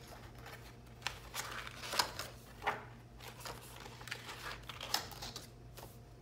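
Planner paper pages being handled and turned: a few short swishes and soft taps, the louder ones about two seconds in and again near five seconds.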